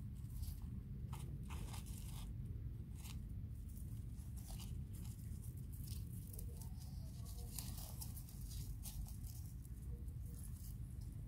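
Roborovski dwarf hamsters in crinkly paper and wood-shaving bedding, making scattered small crunches and rustles at an uneven pace, over a low steady hum.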